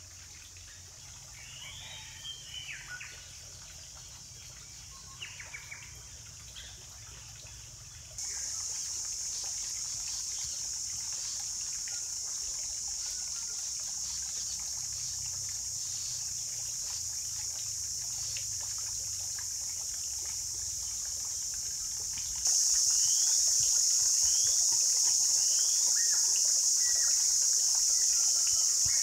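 Steady high-pitched drone of cicadas, stepping louder about eight seconds in and again after twenty seconds, with short bird chirps near the start and near the end.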